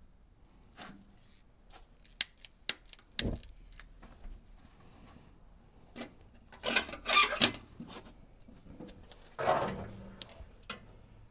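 Handling sounds: a few sharp clicks and knocks in the first few seconds, then louder scraping or rubbing about 7 seconds in and again near the end.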